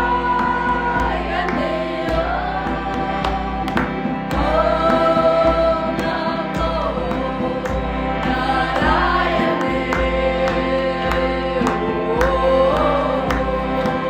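Music with singing: a melodic vocal line over held chords and a regular beat.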